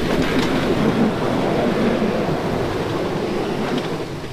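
A 4x4 truck pushing through deep snow, its engine working hard and its tyres churning snow in a loud, steady rushing noise that eases slightly near the end.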